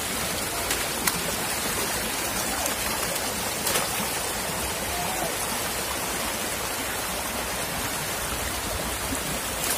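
Shallow river water rushing over stones, a steady wash, with a few short splashes as hands grab at fish in the water.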